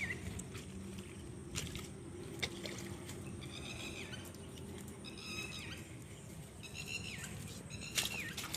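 An animal giving short, high-pitched calls over and over, about five in all, each ending in a quick downward drop in pitch, with a few sharp clicks between them.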